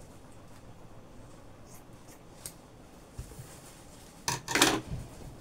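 Fabric and scissors being handled at a cutting table: a few faint clicks, then a short, loud swish of cloth about four and a half seconds in as the cut pieces are lifted and moved.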